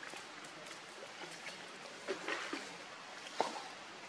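Water splashing and lapping as a macaque swims through a pool. A cluster of splashes comes a little after two seconds, and a single sharp splash, the loudest, about three and a half seconds in.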